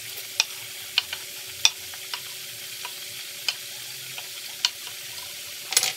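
Shrimp, cauliflower rice and vegetables sizzling steadily in oil in a frying pan as the shrimp are slid off a wooden cutting board into it. Sharp clicks and knocks come every second or so, with a quick cluster near the end.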